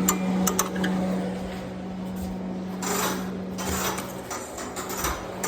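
A steady low machine hum that fades after about four seconds, under scattered clicks, scraping and clattering of things being handled.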